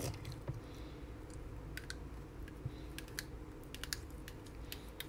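Faint, irregular plastic clicks and taps as a plastic spoon scrapes and scoops freshly made slime out of a small plastic pod.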